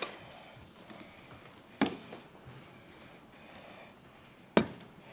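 Two sharp clinks of tableware at a meal, about two and a half seconds apart, against a low room background.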